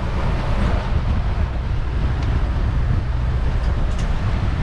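Boat engine running steadily, a low drone under wind rushing on the microphone.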